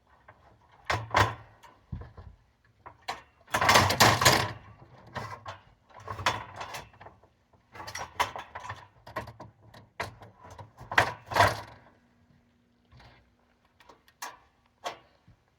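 Irregular knocks, scrapes and rattles of heavy building pieces being handled and shifted into place by hand, loudest about four seconds in and dying down near the end.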